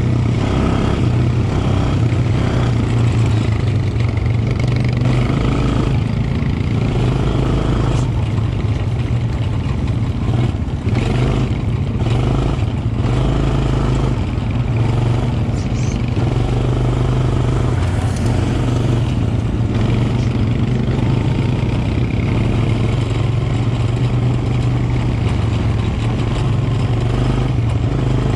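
Quad bike engine running steadily at cruising speed, heard close-up from the rider's seat. The machine rattles and knocks over bumps in the track, most around the middle.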